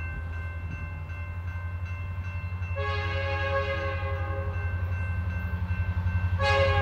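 Canadian National (CN) diesel freight locomotive approaching, its engine rumbling with a steady pulse that grows louder as it nears. Its air horn sounds from about three seconds in and gets louder near the end.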